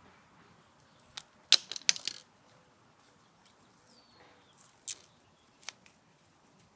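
A few sharp metallic clinks and clicks as tools and cable parts are handled: a quick cluster about a second and a half in, then single clicks near five and six seconds.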